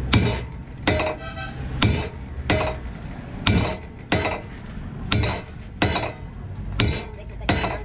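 Hammer blows on steel, about ten sharp strikes at a steady pace of a little more than one a second, one of them ringing briefly.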